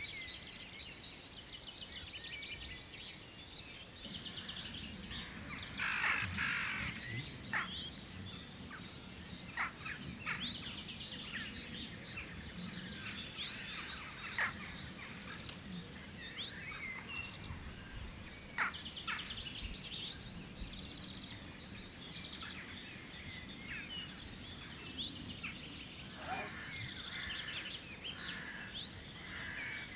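Dawn chorus of many songbirds singing at once: overlapping high chirps, trills and whistles, with a few louder calls standing out now and then.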